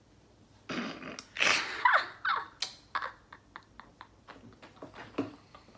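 A woman laughing: a few loud bursts of laughter with falling gasps in the first half, trailing off into short, quieter breathy pulses.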